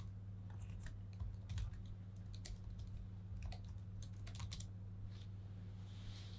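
Keystrokes on a ThinkPad T25 laptop keyboard: quick, irregular typing clicks that stop near the end, over a steady low hum.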